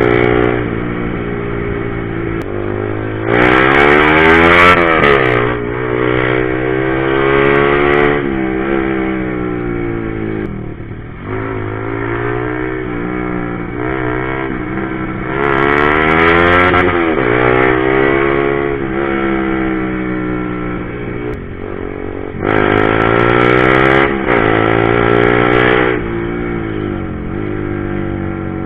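Honda CBR150R's single-cylinder engine under way, revving up hard three times, with its pitch climbing and then dropping back as it shifts up. Between the pulls it settles into steadier cruising, with the pitch slowly easing off.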